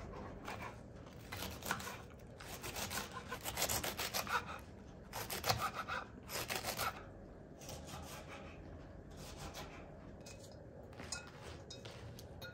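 Knife shredding a red cabbage on a wooden cutting board: fast runs of crisp, rasping cuts, thinning out to a few scattered cuts after about seven seconds.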